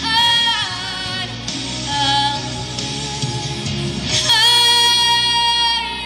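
A woman singing solo into a handheld microphone over instrumental backing, with sung phrases that give way to one long held note near the end.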